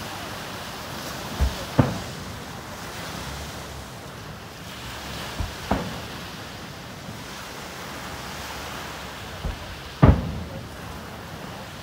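Aerial firework shells bursting in the distance: three pairs of booms, each a smaller thump followed a fraction of a second later by a louder bang, about four seconds apart, the last pair the loudest. Beneath them runs a steady rushing background noise.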